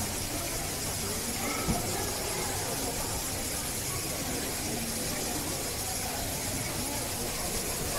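Steady hiss, with one sharp click a little under two seconds in.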